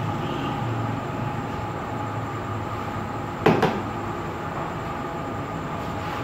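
Steady machine hum with a few even held tones, like a fan or motor running. A short, sharp double knock, like a hard object set down or bumped, comes about three and a half seconds in.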